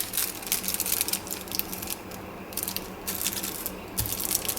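Plastic speed cube (Gans 356S V2) being turned by hand: quick irregular clusters of light plastic clicks and clacks as the layers move, while its spring tension is tried out.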